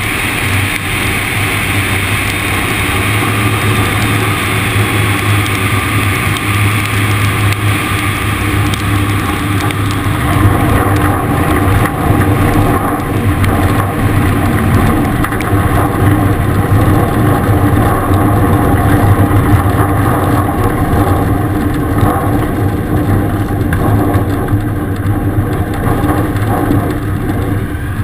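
Engine and propeller of a Zenair CH 701 light aircraft running steadily at low power through the landing roll and taxi on a grass strip, a constant low drone. A rush of air over the airframe fades about ten seconds in as the aircraft slows.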